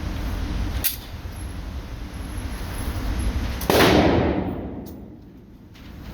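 Two handgun shots in an indoor range: a sharp crack about a second in, then a much louder shot more than halfway through that echoes and fades over about a second. A steady low rumble of range noise runs underneath.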